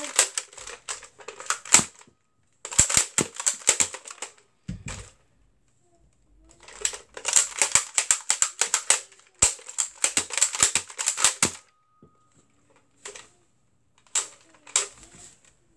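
Rapid plastic clicking and rattling from a handheld toy foam-dart blaster being worked by hand, in several runs of one to a few seconds with short pauses between. The longest run comes near the middle.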